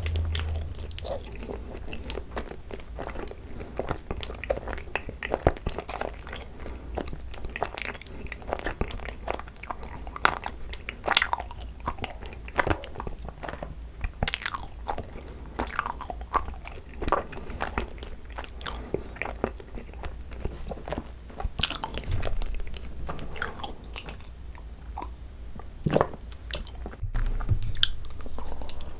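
Close-miked chewing and biting of cream cheese–filled Korean rice cakes (tteok): a continuous run of short mouth clicks and smacks.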